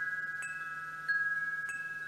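Wind chimes ringing: several overlapping sustained tones that fade slowly, lightly struck again about three times.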